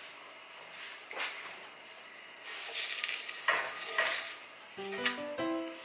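A spatula scraping and clicking against a cast-iron skillet as a corn tortilla is worked loose and turned, with some hiss from the hot pan, loudest a little past halfway. Piano music starts near the end.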